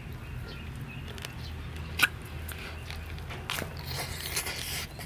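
Close-up mouth sounds of a man biting and chewing steamed snake meat: wet smacks and a few sharper crunches, the loudest about two seconds in.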